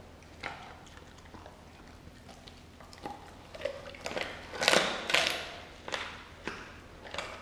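Doberman biting and tearing at a whole raw turkey, wet bites and rips of flesh. A few bites come early, then a busier run of louder bites about halfway through.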